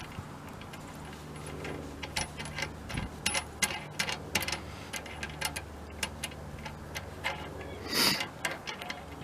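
Small metal parts being handled: irregular light clicks and clinks as a washer and bolt are fitted by hand to a VW bus gas door latch, with a louder clatter about eight seconds in, over a steady low hum.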